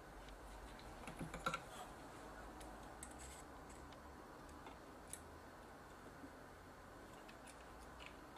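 Light clicks and taps of small tools on a circuit board while a capacitor is desoldered, a quick cluster of them about a second in and single ones later, over a faint steady hum.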